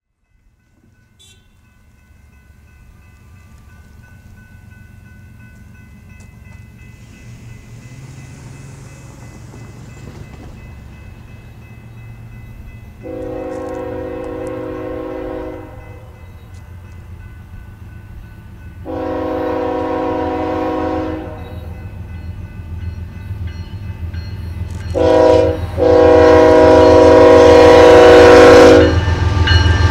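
Union Pacific GE ES44AC-H diesel-electric locomotive approaching, its low rumble growing steadily louder. Its multi-note air horn sounds the grade-crossing signal: two long blasts, one short, and one final long one.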